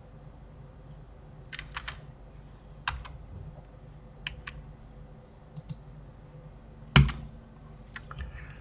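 Computer keyboard keys being pressed in scattered single strokes and short groups, about a dozen in all, over a faint steady hum. About seven seconds in there is one much louder knock.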